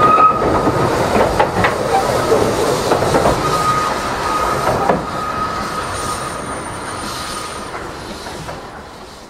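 Narrow-gauge railway carriages rolling past and away, wheels clicking over the rail joints with a steady high flange squeal. The sound fades steadily and then cuts off near the end.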